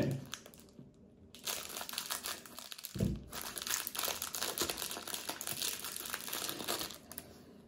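Small clear plastic bag crinkling as it is handled and worked open, in a stretch of dense crackles, with a soft low thump about three seconds in.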